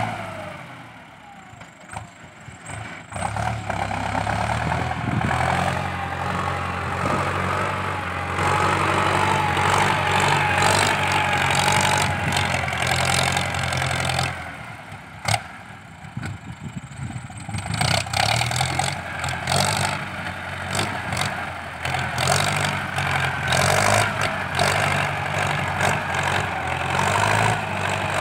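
Ford 6640 tractor's diesel engine working under load as the tractor pushes soil with its front blade and drags a disc harrow. The engine eases off near the start and again about halfway through, then pulls hard again.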